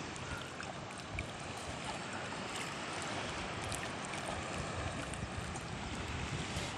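Water sloshing and lapping against a small outrigger canoe as it is paddled, with the wooden paddle stroking through the water.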